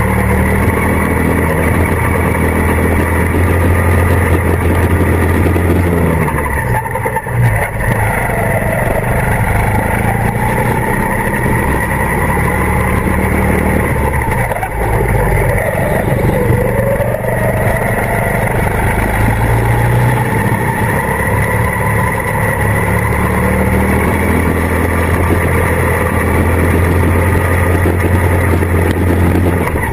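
Go-kart engine heard from on board, running hard with its pitch dipping about seven seconds in and again around fifteen seconds in, then climbing back up as the kart slows for corners and accelerates out.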